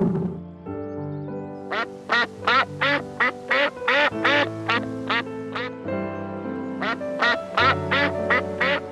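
A duck quacking in two quick runs of short calls, about three a second, with a short pause between, over background music with held notes.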